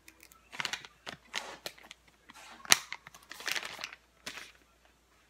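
Soft plastic pack of baby wipes rustling and crinkling in the hands as wet wipes are pulled from it one-handed and handled, in a string of short bursts, with one sharp click about halfway through.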